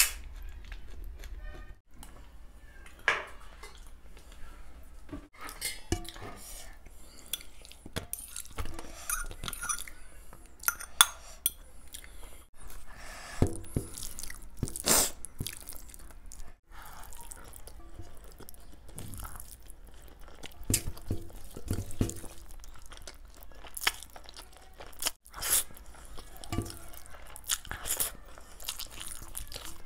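Close-miked eating sounds: chewing with many irregular sharp crunches and clicks as Maggi instant noodles are eaten by hand. A metal spoon scrapes and clinks on a stainless steel plate near the start.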